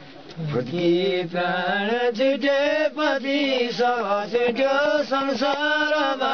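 Elderly men chanting a Nepali shlok in unaccompanied voice, a drawn-out sung line with long held notes that begins about half a second in.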